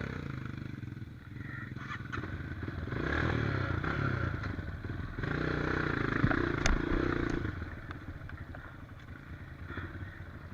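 Trail motorcycle engine running, rising in two revs about three and six seconds in, with a few sharp knocks.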